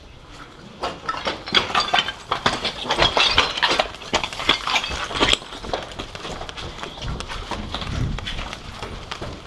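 A quick, irregular run of clicks and knocks, several a second, loudest from about a second in to about five seconds, then softer, with a few dull thuds near the end.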